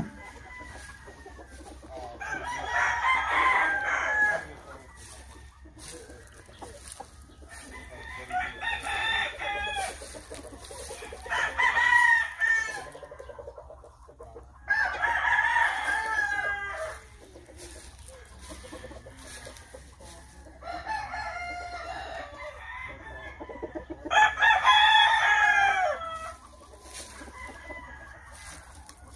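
Gamefowl roosters crowing: about six long crows, each lasting a second or two and spaced a few seconds apart.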